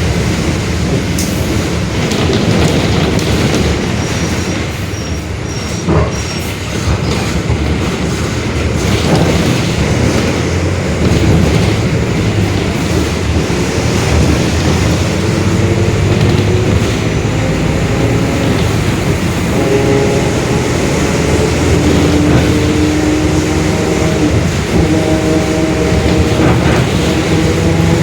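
Mercedes-Benz OF-1721 Bluetec 5 bus running at speed: a steady rumble of driveline, tyres and rattling body, with the differential growling. From about halfway a humming tone slowly climbs in pitch as the bus gains speed, and there is a single knock about six seconds in.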